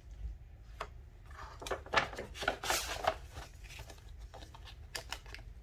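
Paper rustling and tape being pulled off as the taped-on sublimation transfer sheet is stripped from a journal cover. The handling is densest from about one and a half to three seconds in, with a few sharp clicks and taps around it.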